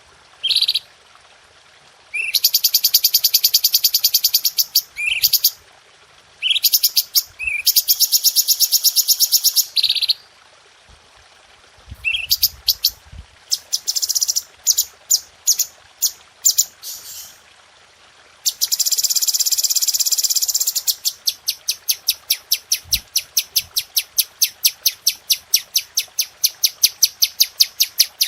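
Cucak cungko singing: high, dense trilling phrases of one to three seconds, broken by short sharp chirps. About two-thirds of the way through, the song turns into a long run of rapid, evenly spaced sharp notes, the rapid-fire 'tembakan'.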